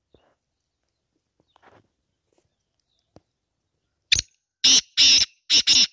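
Black francolin calling: a phrase of five loud notes starting about four seconds in, one short note and then two pairs in quick succession.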